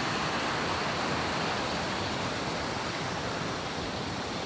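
Steady rushing of a river flowing over stones.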